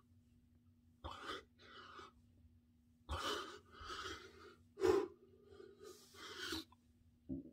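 A man breathing hard through push-ups: a series of forceful exhales and gasps at uneven intervals, over a faint steady hum.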